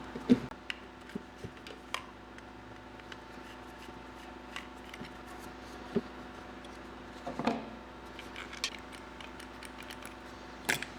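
Scattered light clicks and handling noises from small hand work, over a faint steady hum.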